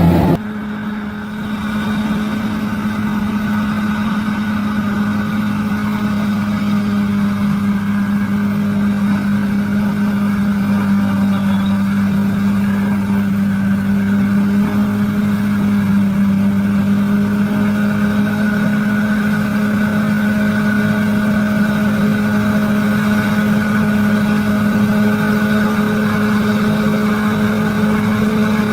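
Bulldozer's diesel engine running hard at a steady speed, one held pitch throughout after a short dip in level about a second in.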